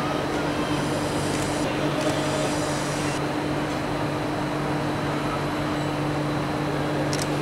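A steady mechanical hum under a constant whirring noise, like a motor or fan-driven machine running, unchanging throughout. A couple of faint ticks near the end.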